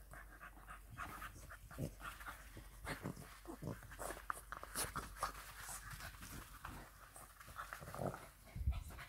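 English bulldog puppy panting in short, irregular breaths while chewing a rope toy, with a soft thump near the end.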